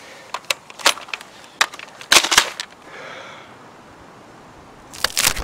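A few sharp clicks and crunching knocks of handling and movement, single ones at first, then a loud cluster about two seconds in and another near the end, with quiet outdoor hiss between.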